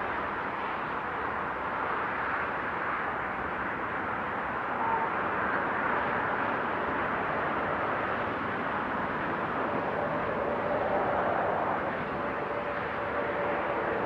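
Steady motorway traffic: a continuous hiss of tyres on the road surface. A droning tone from a passing lorry comes in near the end.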